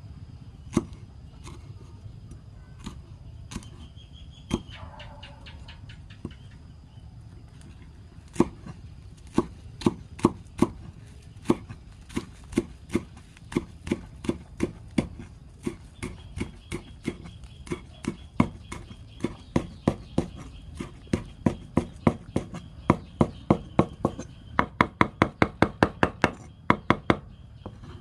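A cleaver chopping spring onions on a wooden chopping board. A few scattered chops come at first, then steady chopping starts about eight seconds in and quickens to about four chops a second near the end.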